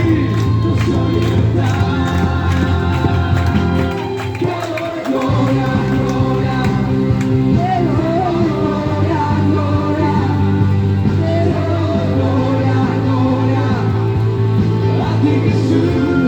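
Loud music with singing voices. The bass drops out briefly about four seconds in.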